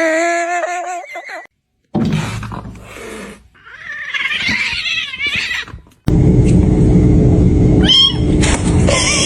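A cat meowing and yowling in several short cut-together clips: a wavering call at the start and another one about halfway through. From about two-thirds of the way in, a loud steady low noise takes over.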